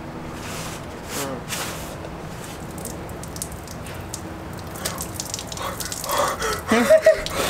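Water poured from a plastic bottle over a person's head, splashing and dripping, followed near the end by short yelps at the cold water.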